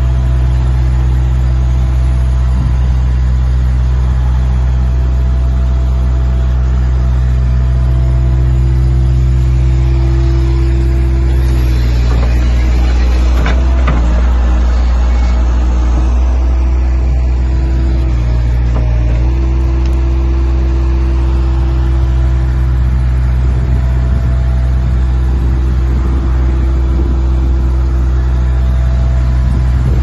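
Heavy machine's engine running at a steady speed, a deep even drone, with its note briefly unsettled around the middle.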